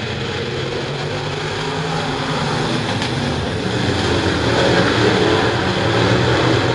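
A pack of dirt late model race cars running flat out with their V8 engines, a dense blended engine noise that grows louder from about halfway through.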